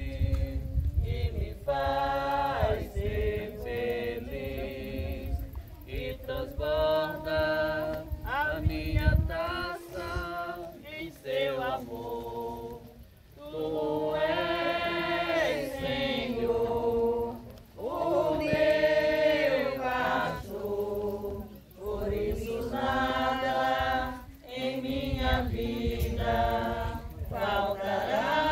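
A crowd of people singing a hymn together in Portuguese, in sung phrases separated by short pauses.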